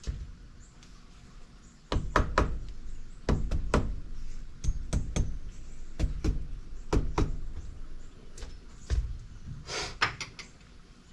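An irregular series of sharp knocks and taps, about a dozen over several seconds, some ringing briefly: hand tools and metal parts striking during work on a motorcycle engine being assembled.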